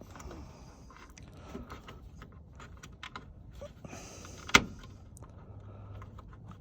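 Faint rustling, scraping and small plastic clicks as a hand twists a stiff, never-removed front turn-signal bulb socket on a pickup truck, with one sharp click about four and a half seconds in.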